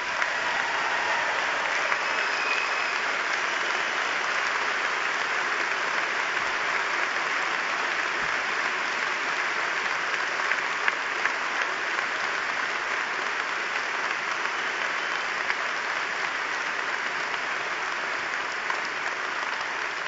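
A large audience applauding in a sustained standing ovation, a dense steady clatter of many hands that eases slightly near the end.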